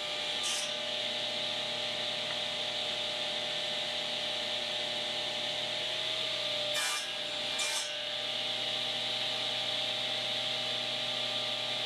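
Table saw running steadily with a constant hum and hiss. Two pairs of short, sharp bursts, one at the start and one about seven seconds in, as the blade crosscuts the wood on a crosscut sled.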